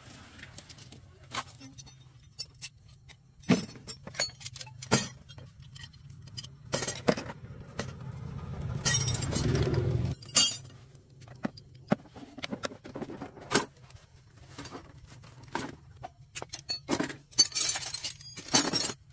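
Metal hand tools (sockets and wrenches) clinking and clattering as they are picked up and set down, in scattered sharp clicks with a dense run of clinks near the end. A louder rustling, scraping stretch comes a little before halfway and stops abruptly.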